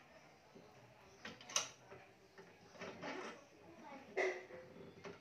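Badminton racket being strung by hand on a stringing machine: BG66 string handled and drawn through the strings, with a few sharp clicks.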